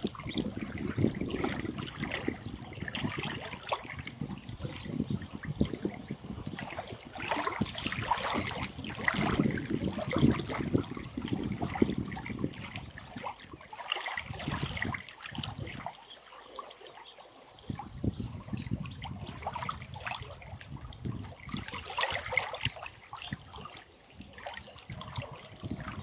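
Small waves lapping and trickling against a rocky lakeshore, with a low rumble underneath that drops away for a few seconds past the middle.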